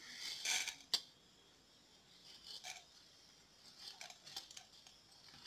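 Coriander seeds poured into a dry nonstick pan of roasting lentils: a soft rattling patter for about a second, ending in one sharp tap. Faint scraping follows.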